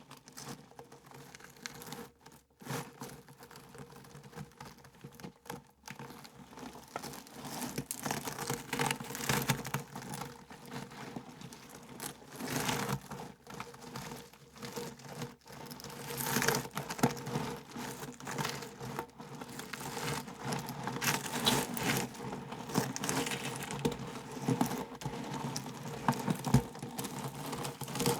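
A hollow wheel rolling over stones: continuous gritty crunching with many small rattling clicks. It pauses briefly twice in the first few seconds and grows louder from about eight seconds in.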